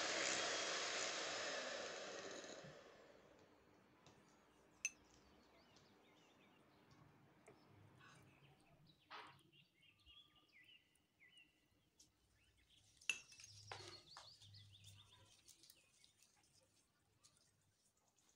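Electric hand mixer whipping cream in a glass bowl, its motor running steadily and then fading out about three seconds in. After that come a few faint scattered clicks and taps, with some faint chirps.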